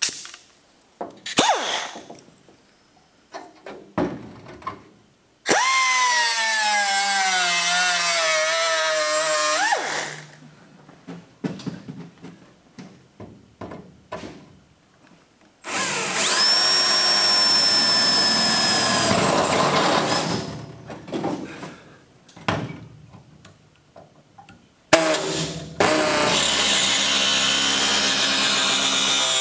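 A cordless drill runs into the sheet metal of a car's rusty rear window channel, its whine dropping in pitch as the bit loads. This happens in two runs of a few seconds, with knocks and clicks of tool handling in between. Near the end a pneumatic air tool on a hose starts up and runs steadily against the metal.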